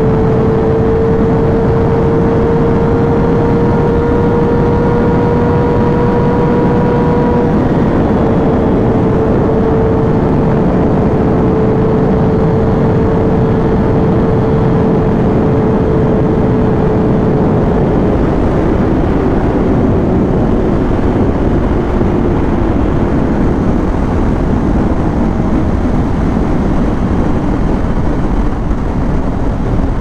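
Kawasaki Ninja ZX-6R's inline-four engine running at high, steady revs at motorway speed under a loud rush of wind. About two-thirds of the way through, its pitch starts to slowly drop as the bike eases off.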